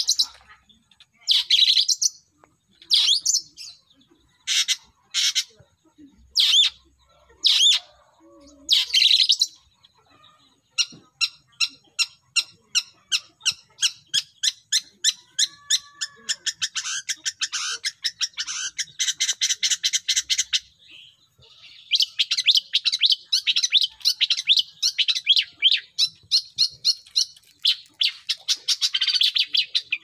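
Long-tailed shrike (pentet) calling and singing: first a string of harsh single calls about a second apart, then from about eleven seconds in a long run of rapid short chattering notes, about four to five a second, and after a brief pause a dense, varied song.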